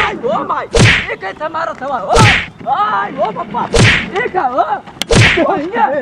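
Punch sound effects for a staged fistfight: four loud hits about a second and a half apart, each a sharp crack that drops away low. Men shout and cry out between the hits.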